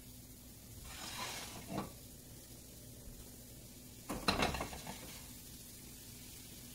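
Hot oil sizzling in a stainless steel frying pan on a gas stove, then, about four seconds in, a clatter of metal knocks and scrapes as the pan is shifted on the burner grate.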